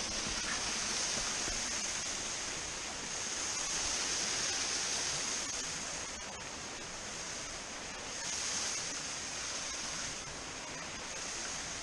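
Rushing water of a small waterfall on a stream, a steady hiss that swells and eases a little.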